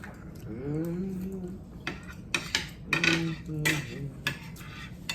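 Forks and spoons clinking and scraping against dinner plates while people eat, with a run of sharp clinks in the second half.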